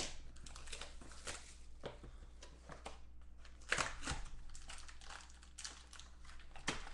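Trading cards and a foil-wrapped card pack being handled on a tabletop: a run of short scrapes, clicks and crinkles, with one sharper knock a little before four seconds in.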